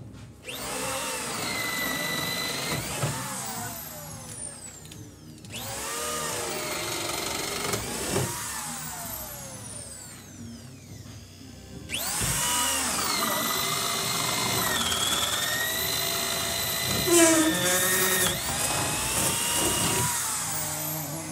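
Corded power drill boring through wooden wall studs with a large auger bit, in three runs. Each time the motor spins up, its whine sags under load, and it winds down when the trigger is released. A short loud clatter comes about three-quarters of the way through, during the longest run.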